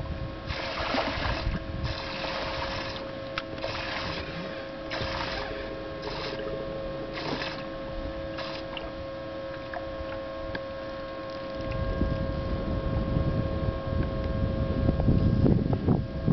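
Steady electric hum with several fixed tones, typical of a bow-mounted electric trolling motor on a small aluminium fishing boat. About eight short bursts of noise come roughly once a second in the first half. Low wind rumble on the microphone sets in about two-thirds of the way through.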